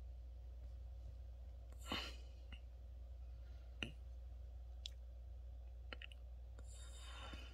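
A sleeping dog's soft breathing: a breathy puff about two seconds in and another near the end, with scattered faint clicks over a steady low hum.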